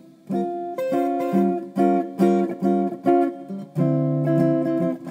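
Guitar music: chords strummed in a steady rhythm.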